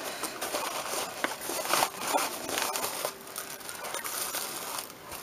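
Paper packaging being handled: a padded kraft mailer and tissue-and-paper-wrapped gifts rustling and crinkling as they are pulled out, with small crackles and clicks scattered throughout.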